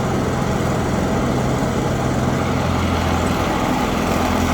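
Petrol lawnmower engine running steadily on a test run after repair.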